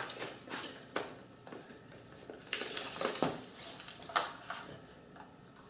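Tape measure being handled and laid across a paper template on plywood: a few light clicks and taps, with a brief scraping rustle about halfway through.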